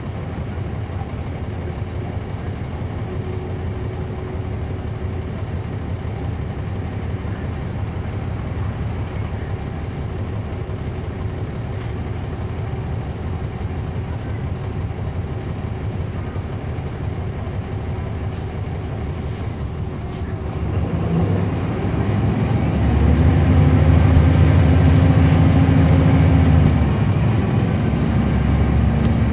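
Caterpillar C13 diesel engine of a NABI 40-foot transit bus, heard from the rear seat inside the bus. It runs at low revs with a steady rumble for about twenty seconds, then the engine note rises and grows markedly louder as the bus accelerates, and eases off a little near the end.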